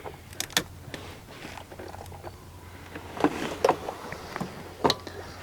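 Scattered sharp clicks and knocks of a ratchet with a deep socket on metal, working loose a 10 mm ignition coil-pack bolt by feel deep in an engine bay.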